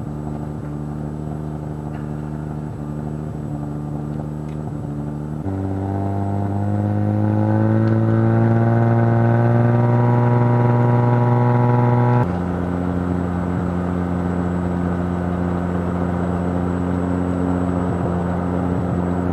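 Wag-Aero light aircraft's piston engine and propeller during the pre-takeoff run-up: running steadily at low rpm, then about five seconds in the rpm steps up and climbs gradually to a steady high speed. About twelve seconds in it drops abruptly back to a steady lower speed.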